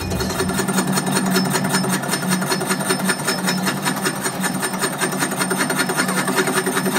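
Metal lathe turning a rough cast compressor-piston blank, the cutting tool knocking against the uneven casting in a rapid, even rhythm over the machine's steady hum.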